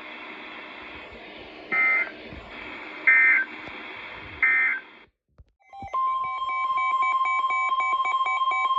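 Emergency Alert System data tones: three short digital bursts, evenly spaced about a second and a half apart, close out the tornado warning. After a brief silence, a steady single-pitch alert tone starts about six seconds in, with a rapid chirping pattern of data tones over it, heralding the next warning.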